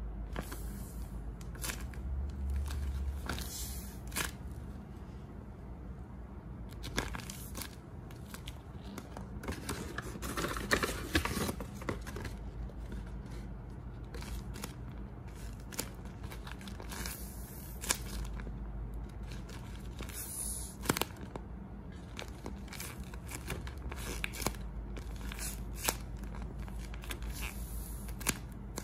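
Homemade tape-covered paper squishies being squeezed and handled, giving irregular crinkling and crumpling of paper and tape with occasional sharp crackles.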